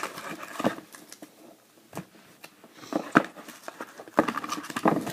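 Trading-card box and foil card packs being handled and opened by hand: crinkling and rustling with a few sharp snaps. The busiest stretch comes near the end.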